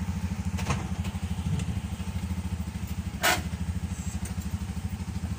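Bajaj RE three-wheeler's single-cylinder engine running with a steady, fast putter, heard from inside the cab. A light click comes just under a second in, and a sharp clack about three seconds in is the loudest sound.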